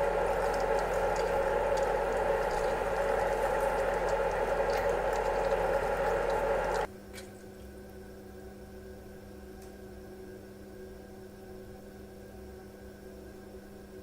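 Sous vide immersion circulators running in a water bath: one unit with a loud steady hum and churning, crackling water, then, about seven seconds in, an abrupt change to a much quieter unit giving a faint steady hum.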